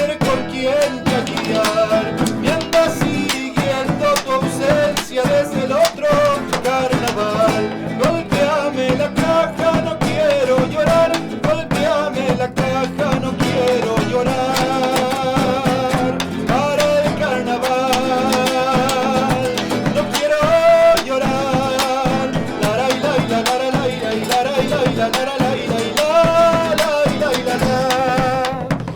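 Argentine folk music in the chaya carnival style: strummed acoustic guitar under a wavering, vibrato melody line, apparently an instrumental passage of the song.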